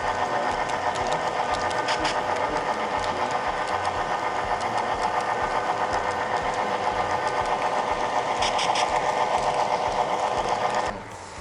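Model train running along the track, picked up by the camera car riding on it: a steady motor-and-gear hum with a fast, even pulsing and a few faint wheel clicks. It cuts off sharply near the end.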